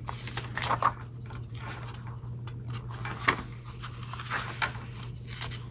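Pages of a small 1967 magazine being turned and handled: paper rustling and flicking in short, irregular strokes, over a steady low hum.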